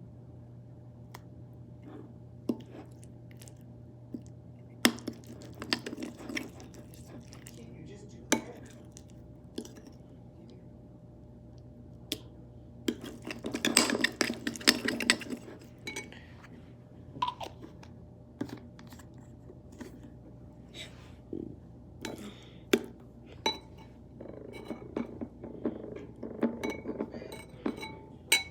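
Irregular clinks, knocks and scrapes of a utensil against bowls and containers as slime ingredients are mixed, with a busier stretch of clattering about halfway through. A steady low hum runs underneath.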